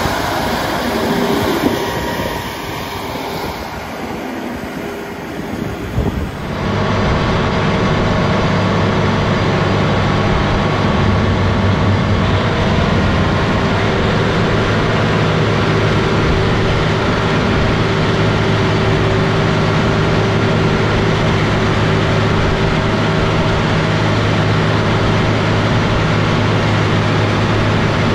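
John Deere 9510R articulated tractor's 510 hp diesel engine running under load while its dozer blade pushes and packs corn silage. For the first six seconds or so the tractor is heard from beside its wheels, with wind noise. It then changes abruptly to a louder, steadier drone with a low hum, heard close to the engine.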